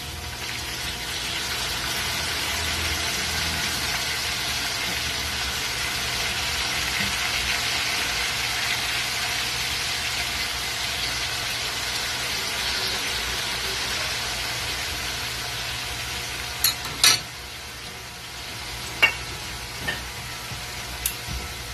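Pork pieces sizzling in a metal wok with brown sugar, a steady frying hiss that eases off toward the end. A few sharp clicks come in the last few seconds.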